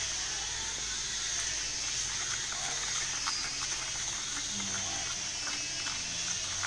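A steady high hiss, with faint scraping and tapping of sticks stirring sand in coconut-shell bowls.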